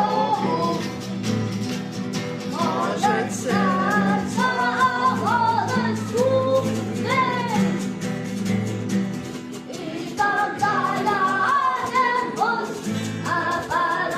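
A rock song with a woman singing a melodic line over guitar and sustained low bass notes.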